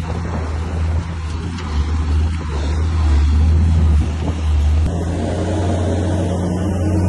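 Komatsu bulldozer's diesel engine running steadily under work, with a low hum; the engine note shifts about five seconds in.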